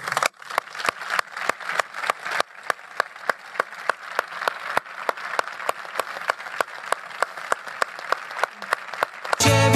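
Audience applauding, with one person's claps standing out, even and about four a second. Music comes in near the end.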